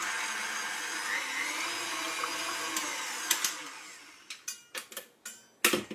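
KitchenAid tilt-head stand mixer running steadily as it beats the liquid dough ingredients in its steel bowl, then winding down to a stop about four seconds in. A few clicks and a sharp knock follow near the end.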